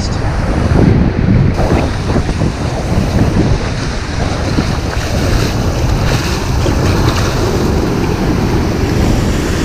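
Wind buffeting the microphone in a steady low rumble over the wash of breaking surf.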